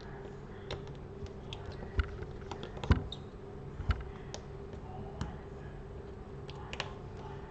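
Small screwdriver and tools clicking and tapping lightly on a smartphone's internal frame as screws are removed, with a few sharper knocks, over a steady low hum.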